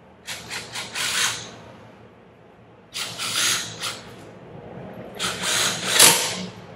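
Cordless impact driver run in three bursts, tightening the bolts that hold the air valve onto a metal double-diaphragm pump. The first burst stutters in short pulses; the other two run about a second each.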